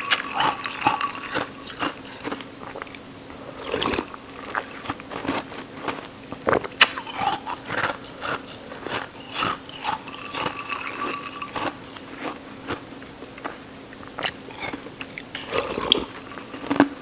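Ice cubes being crunched and chewed between the teeth: a run of irregular sharp crunches and cracks, close to the mouth.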